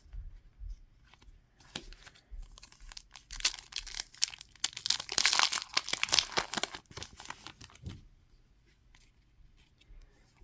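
A small sticker pack's wrapper being torn open and crinkled by hand: scattered small clicks, then a dense crackling tear from about three seconds in, loudest in the middle, dying away to faint handling clicks near the end.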